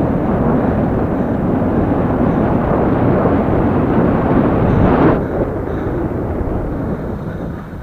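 Wind buffeting the microphone of a camera riding on a moving bicycle: a loud, steady rumble that eases near the end.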